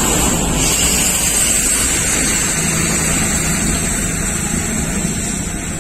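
A car driving past on a concrete road bridge, a steady rush of tyre and engine noise that is loudest about a second in and then slowly fades.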